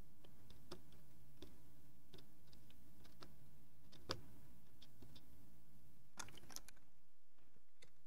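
Faint, scattered clicks and ticks from soldering a through-hole USB-A socket's pins to a circuit board, with a quick cluster of crackles about six seconds in.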